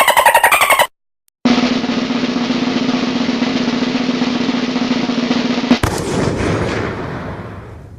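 Snare drum roll lasting about four seconds, ending in a sudden cymbal crash that rings out and fades.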